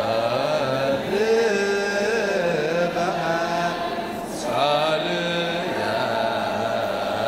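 A choir chanting a wereb, an Ethiopian Orthodox hymn in Ge'ez, with long held, wavering notes. The voices break off briefly about four seconds in, then come back.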